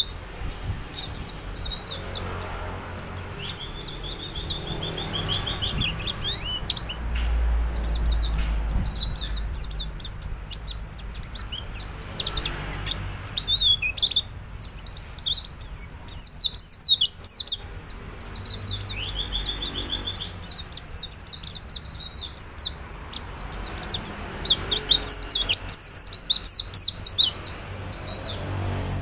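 Caged white-eye (pleci) singing a fast, high-pitched twittering song of rapid chirps and trills, in long bouts broken by brief pauses.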